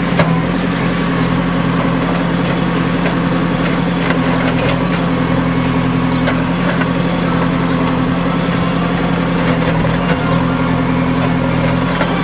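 JCB backhoe loader's diesel engine running steadily while its rear backhoe bucket digs into a stony earth bank, with occasional faint knocks.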